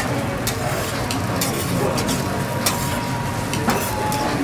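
Metal spatulas scraping and clicking on a steel teppanyaki griddle as fried rice is gathered, over a steady sizzle, with a few sharp clicks scattered through.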